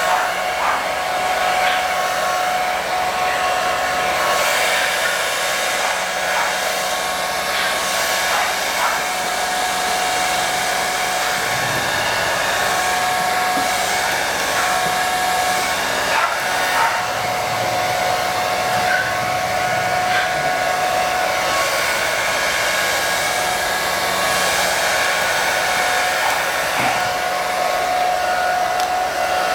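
Handheld hair dryer running steadily while drying a dog's coat: a constant rush of air with a steady whine.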